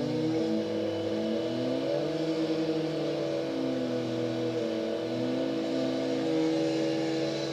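Engines of road-works machinery running together, one at a steady pitch while another's revs rise and fall repeatedly.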